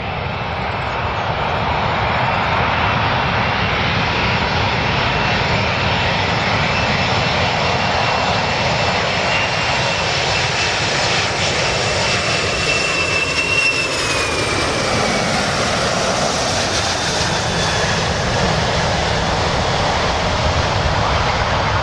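Boeing 747-400 airliner's four jet engines running steadily as it flies low on final approach to land, with a high whine that drops in pitch about two thirds of the way through as the aircraft passes.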